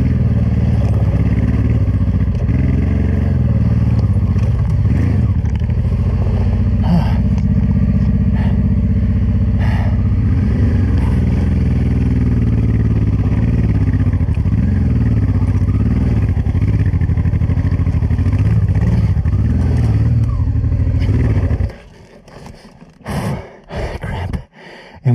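Honda Transalp 600's V-twin engine pulling steadily at low revs up a steep, loose rocky trail, low in the rev range where the rider finds a flat spot. About 22 seconds in, the engine sound stops abruptly, followed by a few short scrapes and knocks.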